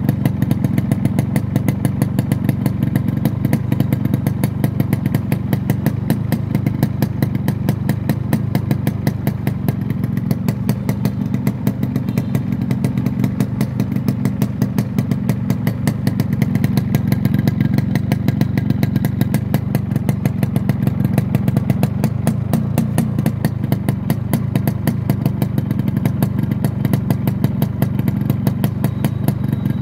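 Yamaha RX 115's two-stroke single-cylinder engine idling steadily, with an even, unbroken beat.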